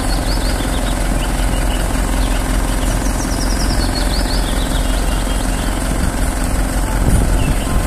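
Engine of a truck-mounted aerial work platform running at a steady idle while its boom lifts the basket, with a heavy low wind rumble on the microphone. Birds chirp faintly now and then.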